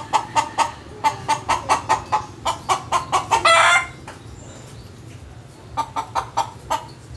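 Chickens clucking in quick, rapid calls, stirred up, with one louder drawn-out squawk about three and a half seconds in. After a short lull the clucking starts again near the end.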